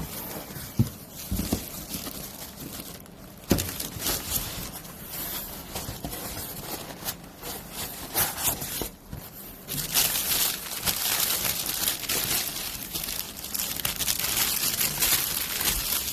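Plastic packaging crinkling and rustling as it is handled and pulled about, with a few dull knocks in the first few seconds, the crinkling getting louder and busier about ten seconds in.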